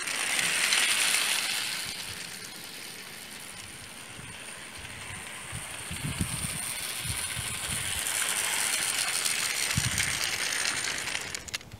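Clockwork toy locomotive and its wagons running on plastic-based model-railway track, the spring motor whirring and the wheels rattling, its spring wound only a few turns. Loud as it passes at first, fading as it goes round the far side of the loop, then growing again as it comes back near the end.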